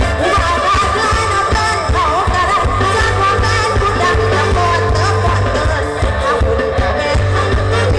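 Live band music played loud through stage speakers, with a woman singing into a microphone over a strong, steady bass.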